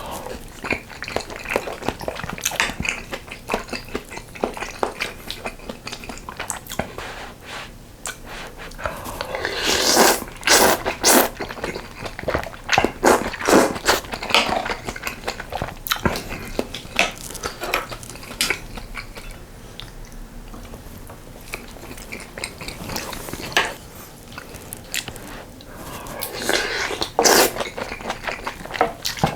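Close-miked eating of budae jjigae with ramen noodles and rice: steady chewing and mouth clicks, with louder noisy bursts about ten seconds in, near fourteen seconds and near the end.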